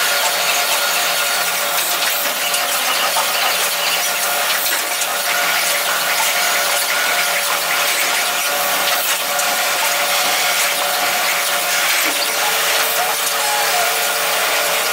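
Doosan vertical machining centers milling metal workpieces: a steady high-pitched squeal from the spindles and cutters over a rough, hissing cutting noise, with a lower tone joining about twelve seconds in.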